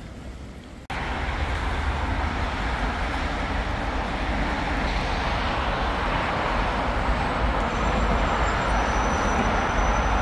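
Steady running noise of a moving vehicle with a heavy low rumble, cutting in abruptly about a second in.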